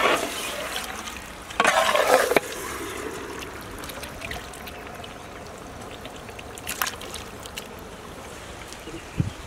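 Chicken pieces in thick masala sizzling and simmering in a large aluminium pot, a steady wet hiss. A metal ladle stirs and turns the chicken, with a louder wet squelching burst about two seconds in.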